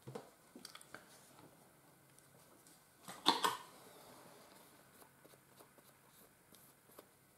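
Quiet handling of nail-art tools over a plastic palette: scattered small clicks and taps, with one louder, noisy half-second handling sound a little over three seconds in.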